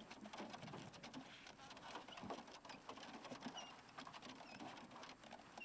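Faint scattered clicking and scratching from a large dog's claws on a car's sheet-metal bonnet as it climbs up and shifts about on it. A few short high chirps, like small birds, come near the end.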